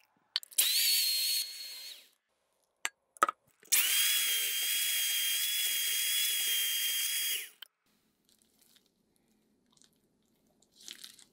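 Electric mixer beating butter and sugar as small portions of green spinach purée are worked in, running with a steady high whine in two spells: a short one of about a second and a half, then a longer one of nearly four seconds. A few sharp clicks come between the spells.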